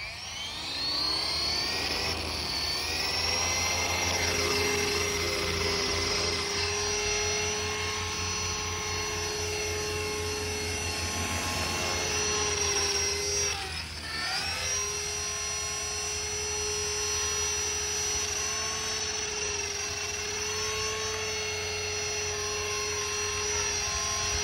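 GAUI X3 electric RC helicopter's motor, gears and rotors rising to speed over the first couple of seconds, then running with a steady high-pitched whine. About 14 s in the speed dips briefly and comes back up.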